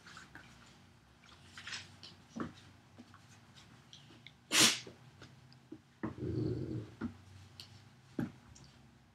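A giant St. Bernard mix and a Bernese Mountain Dog puppy play-fighting on a hardwood floor: scuffling and short knocks, one sharp loud dog sound about halfway through, and a low growl lasting under a second shortly after.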